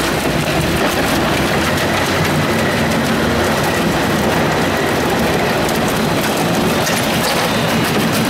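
Genox V1500 single-shaft shredder grinding wooden pallets: steady machine noise with dense crackling and splintering of wood, the crackles growing thicker near the end.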